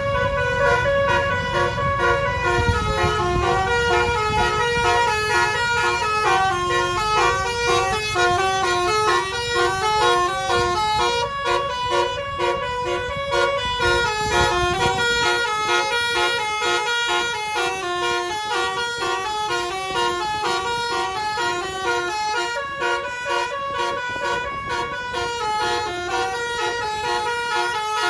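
Ratu Ambia bus's 'telolet basuri' musical horn playing a long melody of quick stepped notes. A low rumble of vehicle noise runs under it and drops away about halfway through.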